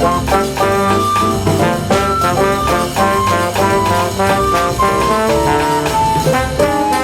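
Recorded brass-led instrumental music: horns play a quick melody of short notes over a steady beat.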